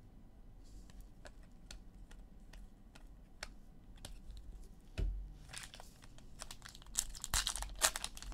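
Trading-card pack handling: scattered light clicks for the first few seconds, a thump about five seconds in, then the wrapper crinkling and tearing as a pack is opened.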